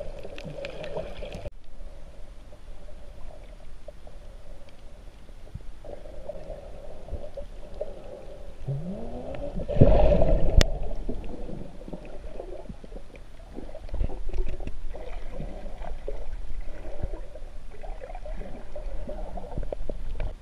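Muffled underwater noise of a snorkeler swimming: water moving around a submerged camera, with a short rising tone just before a loud bump about ten seconds in.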